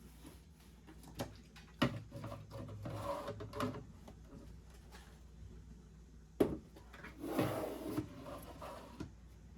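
Kitchen items and cupboard parts handled and shifted, with a few sharp knocks and short spells of clatter and rubbing; the loudest knock comes a little past the middle.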